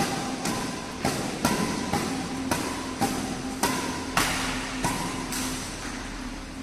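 Badminton rackets striking a shuttlecock in a fast, flat drive rally: a sharp hit about every half second, alternating between the two players and echoing in the hall, with a steady low hum underneath. The hits stop about five seconds in.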